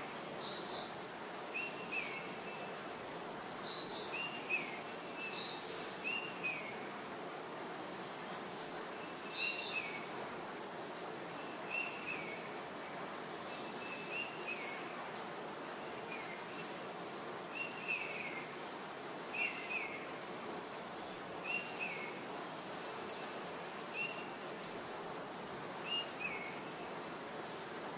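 Birds chirping over a steady background hiss: a short chirp repeating every second or two, mixed with higher, sharper calls.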